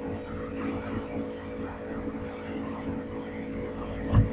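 Steady background hum and hiss, with a short low thump near the end.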